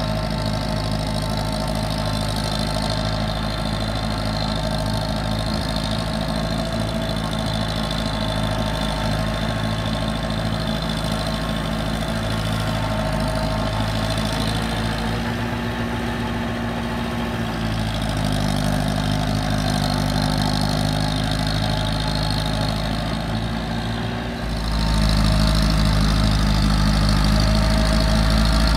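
Massey Ferguson 185 tractor's four-cylinder diesel engine running steadily under load as it works through a flooded paddy field. Its note shifts in pitch about halfway through, and it gets clearly louder about three-quarters of the way in.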